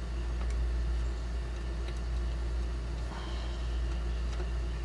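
A steady low hum, with a few faint light ticks about a second apart.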